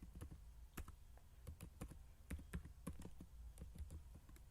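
Faint typing on a computer keyboard: irregular key clicks, several a second, entering a command in a Linux terminal.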